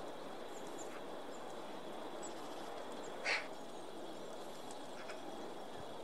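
Quiet forest background with a few faint, very high chirps from small birds at the feeder, and one short, louder, harsh sound about halfway through.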